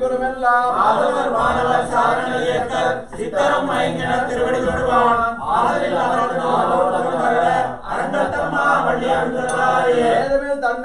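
Hindu priests chanting mantras together in a steady group recitation, pausing briefly for breath every two to three seconds.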